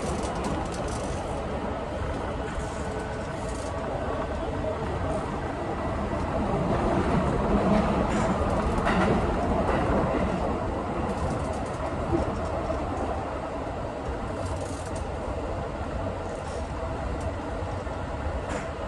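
Keikyu 1000-series electric train running at speed, heard from inside the front car: steady rumble of wheels on rail. A few faint steady tones sit in the noise, and the running noise swells a little near the middle.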